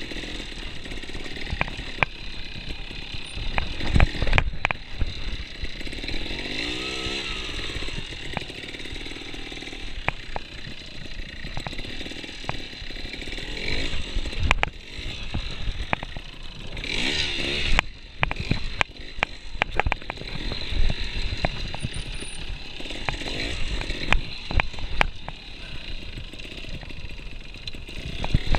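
Trials motorcycle engine running at low revs with repeated short throttle blips as the bike picks its way through a slow section. Frequent sharp knocks and clatter come from the bike over the rough ground.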